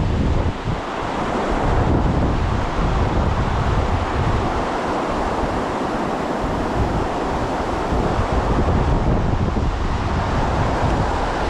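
Steady rush of flowing creek water, with wind buffeting the microphone in uneven low rumbles.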